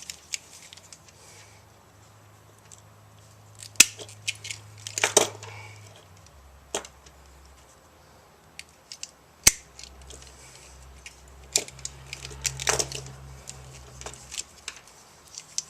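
Scattered sharp clicks, snips and brief rustles of small hand tools, wire and a plastic cord cap being handled during an extension cord repair, over a faint low hum.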